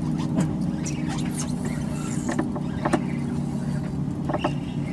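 Mercury outboard motor idling with a steady low hum, with a few sharp clicks over it.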